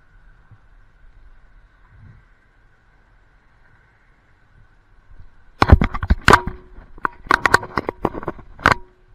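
A cluster of loud, sharp knocks and clattering hits begins a little past halfway and lasts about three seconds. Some hits are followed by a brief ringing tone. A faint, steady high hum runs underneath.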